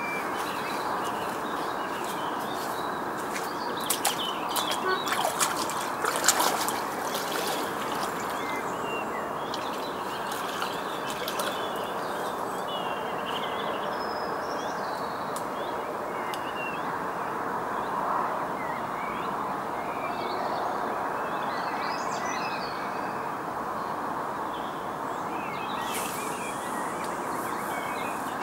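Small birds chirping and calling over a steady background hiss. A cluster of sharp clicks and knocks comes about four to six seconds in.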